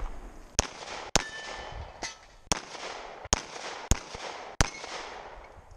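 Semi-automatic pistol fired in a string of about seven single shots, spaced roughly half a second to a second apart, as the shooter moves from target to target.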